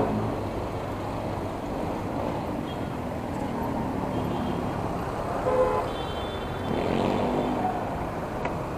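Busy city road traffic, with the engines of cars and vans running close by. A short vehicle horn toot sounds about five and a half seconds in.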